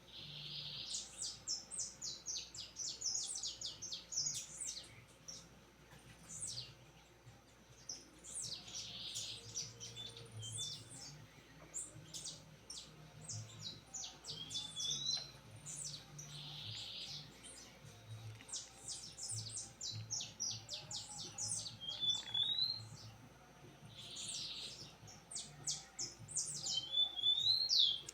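A songbird singing the same song phrase about four times, roughly every eight seconds. Each phrase is a quick run of sharp, high notes ending in a short twitter.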